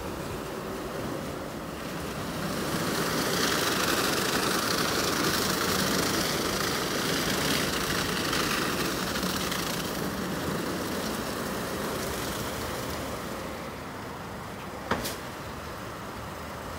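WashTec Combiwash Silverlight rollover car wash running: spinning brushes swishing and slapping against the car with water spray and the gantry's motors. The noise swells for several seconds as the side brushes sweep past, then eases, with a single sharp click near the end.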